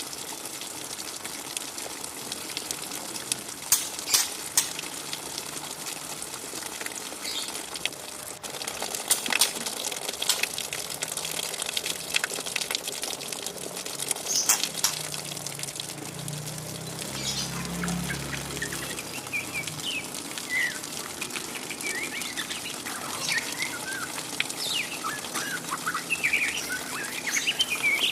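A young white-rumped shama, a speckled juvenile of about three to four months, giving its scratchy 'ngriwik' chatter: short twittering chirps that grow dense in the second half, over a steady hiss. A few sharp clicks come in the first half.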